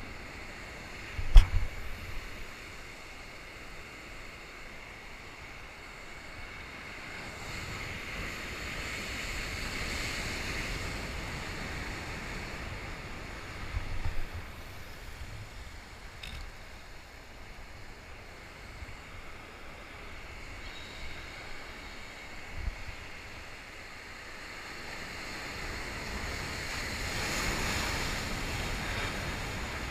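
Surf washing over the concrete blocks of a breakwater, swelling up twice, about a third of the way in and again near the end, with wind on the microphone. A few short knocks stand out above it.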